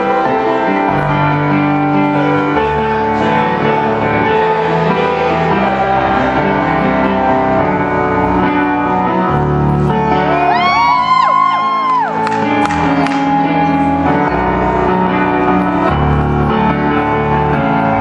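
Live piano music, full held chords played without a break. About ten seconds in, audience members whoop over it for a couple of seconds, their calls rising and falling in pitch.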